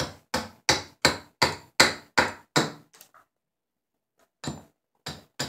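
Hatchet chopping into an American sycamore spoon blank braced on a wooden stump, thinning its underside: quick sharp strikes about three a second, a pause of about a second, then a few more.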